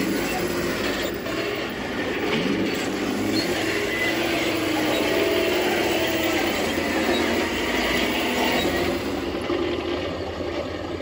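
Radio-controlled Tiger I tank model running on its tracks across grass and flagstones: a continuous whir of the drive motors and gearboxes with the tracks clattering, the pitch shifting as it moves.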